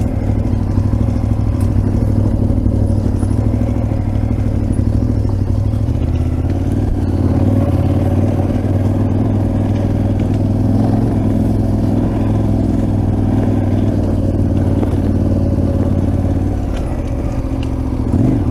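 Adventure motorcycle engine running while under way, steady, with a change in engine note about six seconds in and again near the end.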